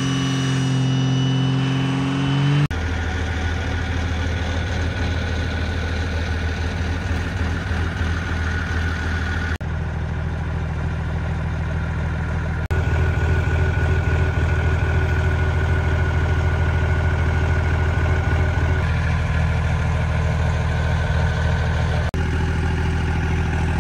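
Cummins turbo-diesel in a Dodge Ram pickup, first pulling hard under load with its pitch rising slightly, then idling steadily. The sound changes abruptly in level and tone a few times.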